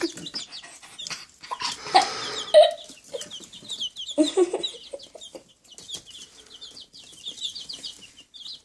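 Baby chicks peeping: a rapid stream of short, high, falling peeps that grows denser from about three seconds in, with scattered light clicks.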